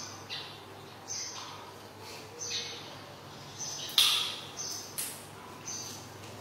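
Short high-pitched animal chirps repeating about once a second, with a sharp click about four seconds in and another a second later.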